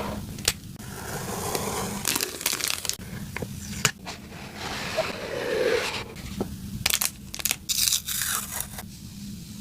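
Packaging being handled and opened: crinkling, rustling and tearing of paper or plastic wrapping, with scattered sharp clicks and taps.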